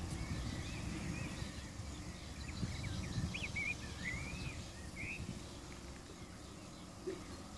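Outdoor ambience: wind rumbling on the microphone, with a bird calling a string of short rising and falling chirps for a few seconds in the middle.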